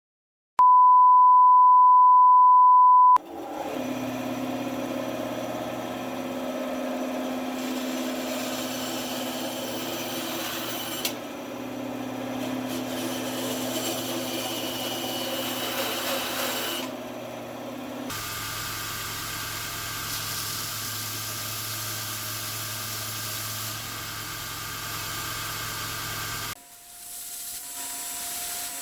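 A loud steady 1 kHz test-tone beep for about two and a half seconds. Then the steady running noise of a workshop power tool with a hum, such as a grinder or sander, changing abruptly twice, as if cut between shots.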